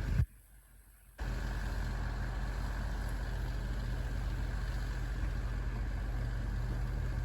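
Engine running steadily at an even, low idle-like note, starting abruptly about a second in after a brief silence.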